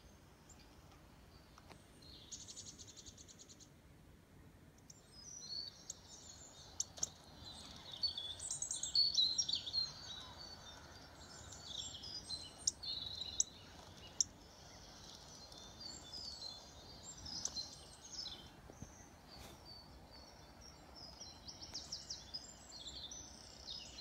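Birdsong from a bird video playing through an iPad mini's small speaker: high chirps and trills, sparse at first and busy from about five seconds in, with a few sharp clicks among them.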